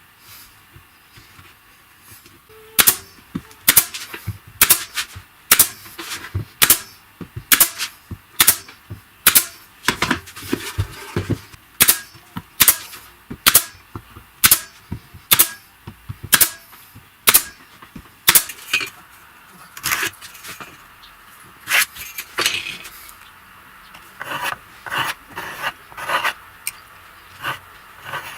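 A run of sharp, evenly spaced knocks, about one a second for some seventeen seconds, as in workshop tool work; near the end they give way to a stretch of rubbing or scraping.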